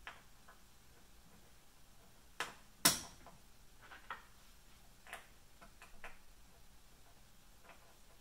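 Scattered clicks and knocks of small metal parts being handled and fitted on a CNC router kit's frame, with one sharp loud knock about three seconds in and a few lighter taps after it.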